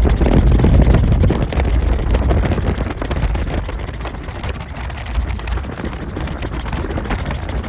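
Helicopter running, a steady rapid rotor chop over engine noise, a little louder in the first second and a half and then easing slightly.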